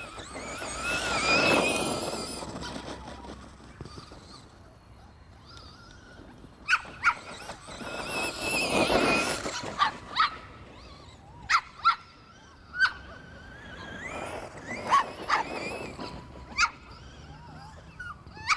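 Electric Traxxas Rustler RC truck running flat out on grass, its motor whine and tyre noise swelling and fading as it passes three times. Short sharp yelp-like sounds come in between, about a dozen of them.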